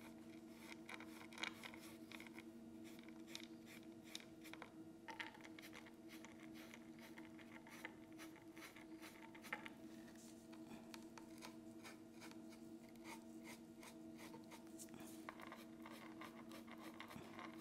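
Faint scratching and light tapping of a dry paintbrush being stroked and dabbed on a painted wooden cutout, over a steady low hum.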